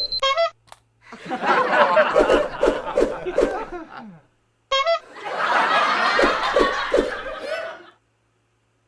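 A short honk from a horn, then a burst of laughter lasting about three seconds. A second honk follows about five seconds in, with another burst of laughter after it.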